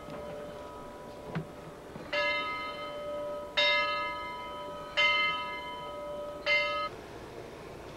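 Steam locomotive bell ringing: four slow, even strikes about a second and a half apart, each ringing on before the next, the last one cut off short. A single light knock comes just before the first strike.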